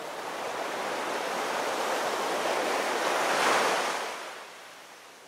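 A rushing noise like wind and waves that swells to a peak about three and a half seconds in, then fades away.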